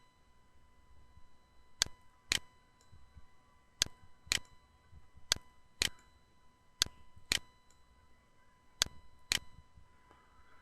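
Computer mouse button clicking, five pairs of sharp clicks about half a second apart, a pair every two seconds or so, over a faint steady electrical hum.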